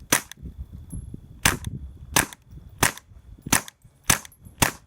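Suppressed Glock 44 .22 LR pistol firing seven shots from the hip: one shot, a pause of about a second, then six more at a quick, uneven pace of roughly one every two-thirds of a second. Each report is a short, sharp crack that sounds like a large staple gun.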